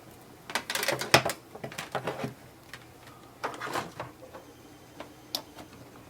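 Handling noises while plugging in an inkjet printer's power cord: an irregular run of clicks, scrapes and rustles, busiest in the first two seconds, with a sharp click about five seconds in.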